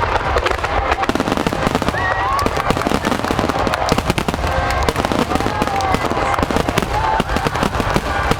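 Large fireworks display with a dense, continuous run of sharp bursts and crackles, and crowd voices heard among them.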